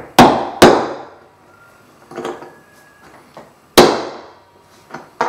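Plastic-faced mallet striking a rivet through a leather strap, peening its end over the washer: sharp blows with a short ring, two hard ones half a second apart at the start and another a little before the end, with a few lighter taps between.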